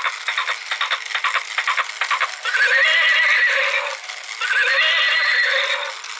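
Battery-operated toy unicorn playing recorded horse sounds through its small speaker: a rapid clip-clop of hoofbeats, then two warbling whinnies, each about a second and a half long.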